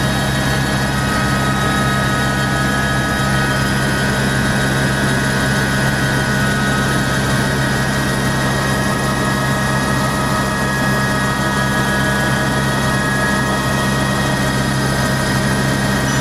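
Helicopter running steadily in flight, a constant loud drone of turbine and rotor with a steady low hum and a high whine, unchanging throughout.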